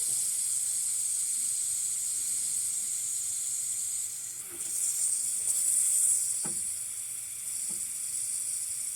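Trapped air hissing steadily out of the opened bleeder valve of a hot-water baseboard radiator; the hiss dips briefly about four seconds in, then comes back stronger. A lot of air is being bled from the heating system, the trapped air that kept this radiator from heating.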